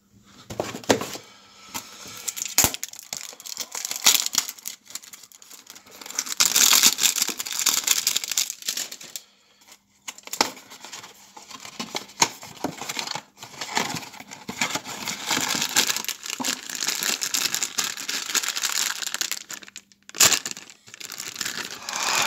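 Crinkling and tearing of a foil blind-bag and its cardboard box as a Funko Mystery Mini figure is unwrapped by hand, with scattered sharp clicks among the rustling.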